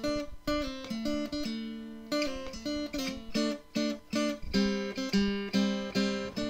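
Acoustic guitar music: a run of plucked notes and strummed chords, each starting sharply and fading away.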